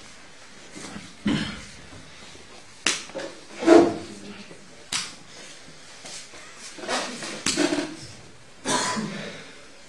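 Sharp slaps and smacks of hands and bodies on cotton gi and mat as jiu-jitsu techniques are applied on a kneeling partner, a handful spread through, with short bursts of voice between them, the loudest a little under halfway.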